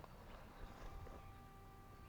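Near silence: faint outdoor background with a faint, steady high tone that comes in about halfway through.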